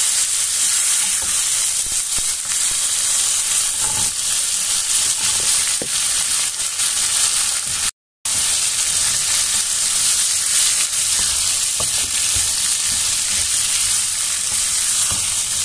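Oil in a pan sizzling steadily as boiled broad beans are stirred into a spiced onion-tomato masala with a wooden spatula. The sound drops out for a moment about halfway through.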